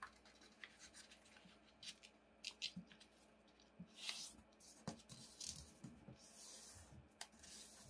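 Faint rustles and crinkles of origami paper being folded and creased flat by hand, in short scattered strokes.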